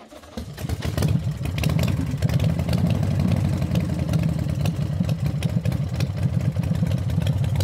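A motor vehicle engine fades in over the first second, then runs steadily with a rapid, rough pulse.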